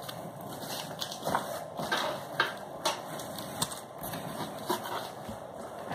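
Plastic wrapping crinkling and a cardboard box rustling as hands move wrapped parts inside it, in irregular short crackles and rustles.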